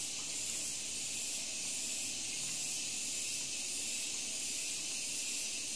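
Steady high-pitched hiss of recording background noise, the microphone's noise floor between spoken remarks, with no other sound.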